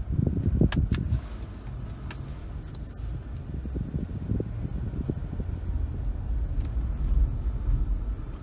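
A car driving, a steady low road and engine rumble, with a couple of sharp clicks about a second in.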